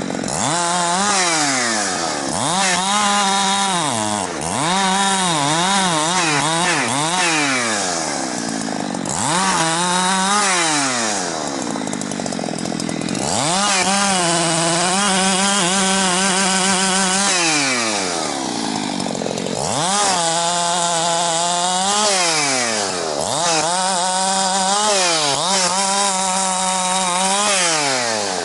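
Husqvarna 365 two-stroke chainsaw cutting wood. It is throttled up to full speed again and again, holding there for a few seconds at a time in the longer cuts, and drops back toward idle between them.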